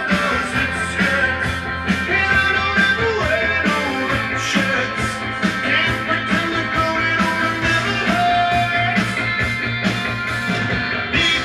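A song with singing and a steady beat, playing from a vinyl record on a Dual 1245 turntable through loudspeakers.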